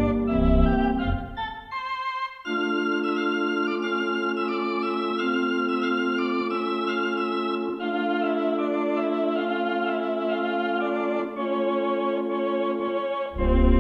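Theatre organ playing a silent-film accompaniment. Short detached notes over a bass line give way about two and a half seconds in to held chords with a melody moving above them, and the bass comes back in near the end.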